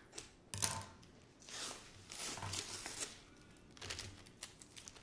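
Scissors cutting through the plastic wrap around a rolled diamond-painting canvas, and the plastic crinkling and rustling in several short, uneven bursts as it is pulled open.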